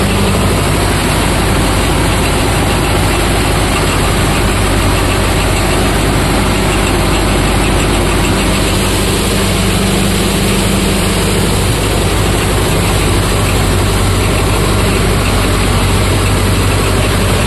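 Tractor diesel engine running steadily at an even speed.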